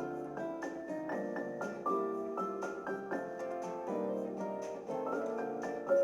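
Background music: a gentle piano melody played in steady notes.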